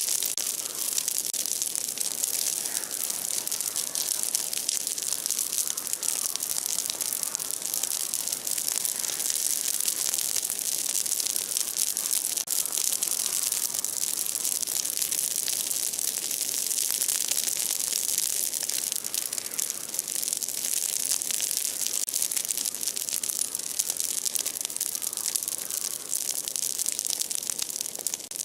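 Large bonfire of broken tree branches burning, crackling steadily with a dense run of small pops over a high hiss.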